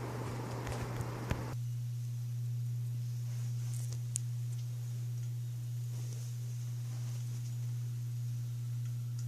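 Loren Sid ceiling fan's motor running with a steady low hum. A rushing noise over it cuts off suddenly about a second and a half in, and a few faint clicks are heard.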